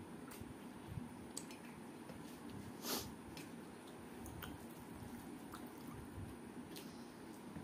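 Fingers mixing cooked rice with curry on a steel plate: soft wet squishing, with scattered small clicks and one louder click about three seconds in.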